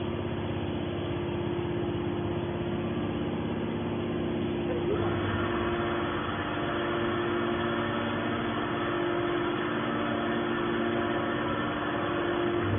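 Hydraulic pump unit of a YDF-63 scrap metal baler running with a steady hum; about five seconds in a higher whine joins it.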